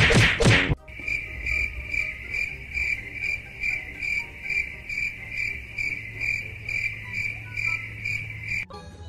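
A loud burst of noise in the first second, then a steady, high-pitched chirping, about two and a half chirps a second, over a low hum, stopping shortly before the end.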